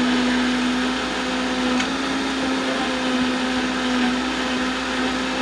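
Vitamix blender running at a steady speed, churning ice and frozen fruit in almond milk: an even motor hum over a dense whirring rush.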